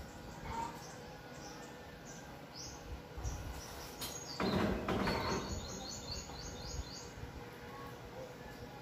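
Songbirds chirping outdoors, mostly single high notes, then a quick run of about eight short falling chirps a little past the middle. About four and a half seconds in, a brief scraping or rustling noise is the loudest sound.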